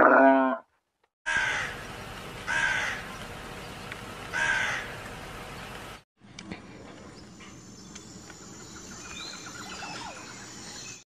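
A crow cawing three times, harsh calls about half a second each, the second a second after the first and the third two seconds later; then quieter outdoor background with faint bird chirps. At the very start, the end of a deep camel groan.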